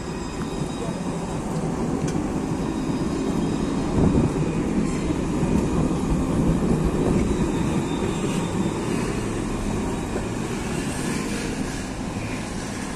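Alstom Citadis tram moving off from a stop and passing close by: a steady low rumble of wheels and running gear that builds, with a thump about four seconds in, then fades as the tram pulls away.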